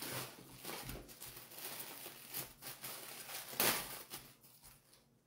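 Plastic wrapping on a piece of cheese crinkling and rustling as it is handled and opened, with one louder rustle a little past the middle.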